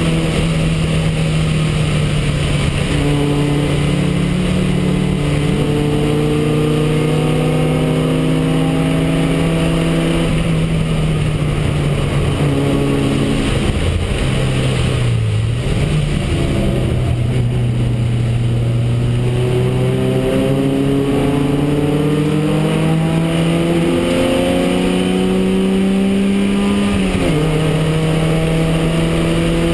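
Porsche 924R race car's engine pulling hard, heard from inside its cabin. The pitch sags to a low point around the middle, then climbs steadily for about ten seconds before dropping suddenly at an upshift near the end.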